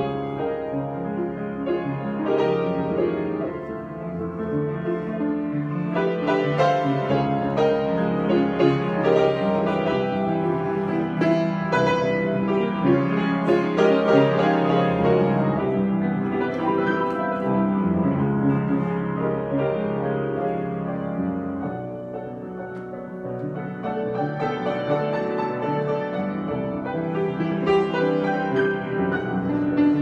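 Solo acoustic piano being improvised, many notes and chords played continuously; the playing softens briefly a little past two thirds of the way through, then builds again.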